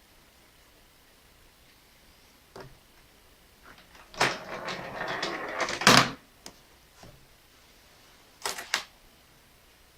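Coins dropping into a home-made coin sorter. A few single clicks come first, then about two seconds of coins sliding and clattering that ends in a loud metallic hit, and a quick double clink comes near the end.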